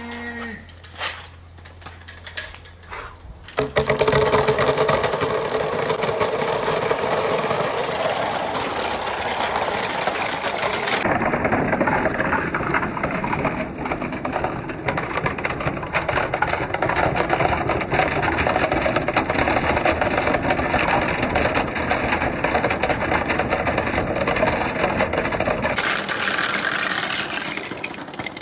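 A large batch of glass marbles rolling and clattering down a marble run. A few scattered clicks give way, about three and a half seconds in, to a dense, continuous rattle of many marbles at once, which fades away near the end.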